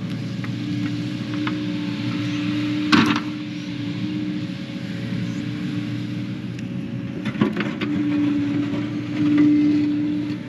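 Diesel engine of a heavy digging machine running steadily, with sharp metal clanks about three seconds in and again about seven seconds in. The engine note gets louder near the end.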